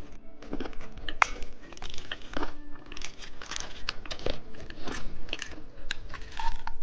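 Candy packaging crinkling and crackling in irregular sharp clicks as it is handled and opened close to the microphone.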